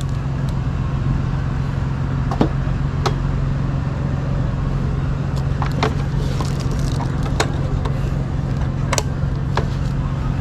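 Steady low hum over outdoor background noise, with several sharp clicks scattered through.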